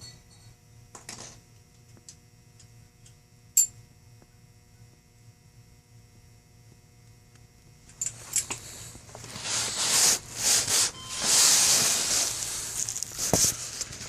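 Handling noise while working on a padlock: a few faint clicks in a quiet stretch, then from about eight seconds in a run of loud, irregular rubbing and scraping.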